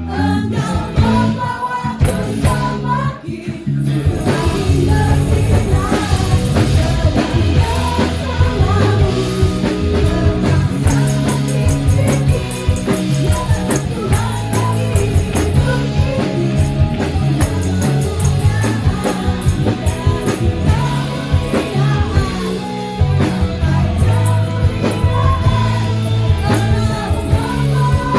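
Indonesian worship song with sung vocals and a full band, the music filling out about four seconds in.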